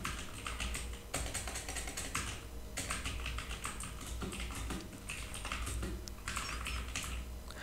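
Typing on a computer keyboard: a fast run of keystroke clicks, broken by a couple of short pauses.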